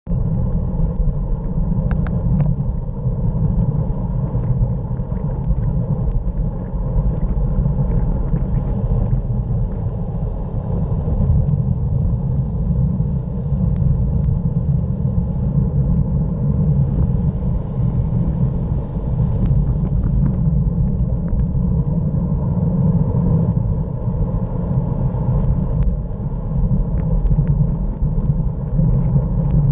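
Wind buffeting the microphone of a camera riding on a fast road-bike descent: a steady, heavy low rumble. A thin high hiss comes and goes in the middle.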